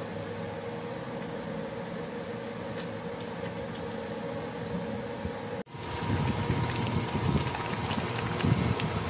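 Steady mechanical hum with a few faint held tones in the first half. After a sudden cut a little past halfway, a pot of chicken vermicelli soup bubbling at a rolling boil, louder and irregular.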